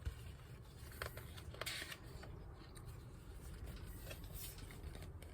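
Soft paper rustle and a few light clicks from a picture book being handled, a page being turned.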